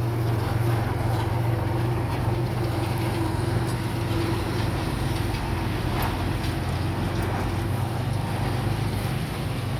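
Heavy diesel engine of a bulldozer running steadily, with a few faint clicks.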